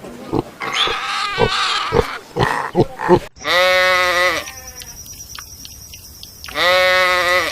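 A run of short animal calls, then two long bleats about three seconds apart, each lasting about a second.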